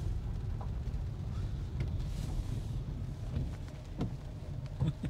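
Steady low road and tyre rumble inside the cabin of an all-electric Nissan Leaf driving on rain-wet roads.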